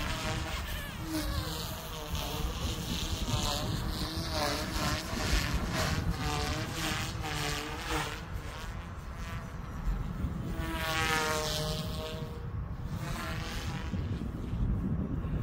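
Small electric RC helicopter in flight, its motor and rotor whining and buzzing, the pitch rising and falling as it is thrown through manoeuvres. Wind rumbles on the microphone underneath.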